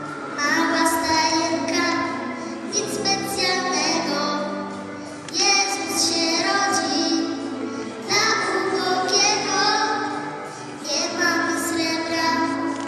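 A young girl singing a Polish Christmas carol (kolęda) into a microphone over instrumental accompaniment, with short breaths between the held phrases.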